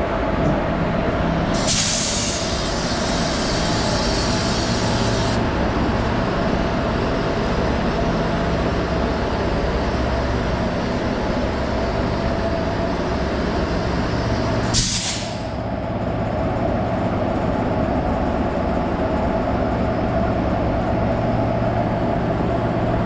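Two coupled WAG-7 electric locomotives running with a steady whirring hum. A hiss of air starts about two seconds in and lasts some three seconds, and a second, shorter hiss comes near the middle.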